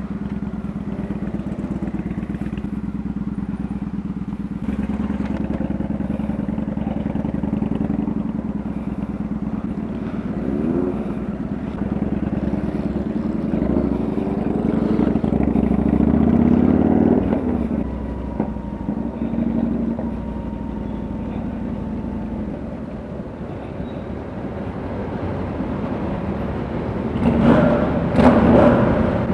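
Kawasaki Vulcan 900 V-twin cruiser engine running under way, heard from the rider's seat: a steady note that rises in pitch as it accelerates, about ten seconds in and again around fifteen seconds in. It grows louder near the end, echoing in a road tunnel.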